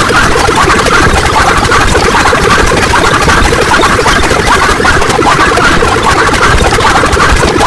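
A loud, dense wall of many sound effects played over one another. They blur into a constant, flickering din with no pause.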